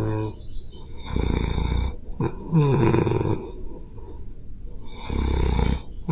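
A person snoring in their sleep: three rough snoring breaths a couple of seconds apart, the middle one louder with a wavering pitch, and another starting near the end.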